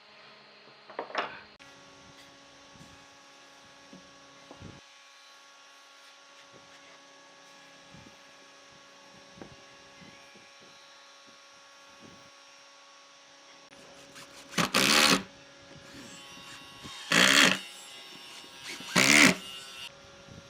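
An electric woodworking machine running with a steady hum, with three short, much louder bursts near the end, about two seconds apart.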